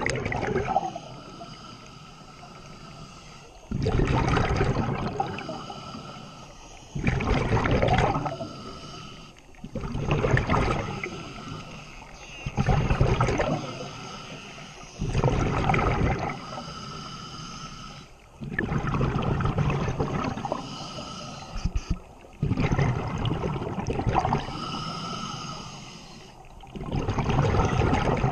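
Scuba diver breathing underwater through a regulator: loud bursts of regulator hiss and exhaled bubbles come roughly every three seconds.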